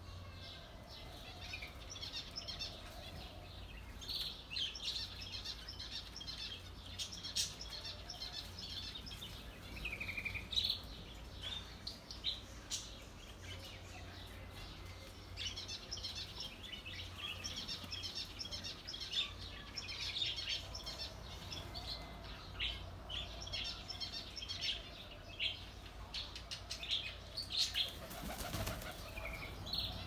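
A mixed flock of small aviary birds chirping and twittering in quick clusters, with wing flapping.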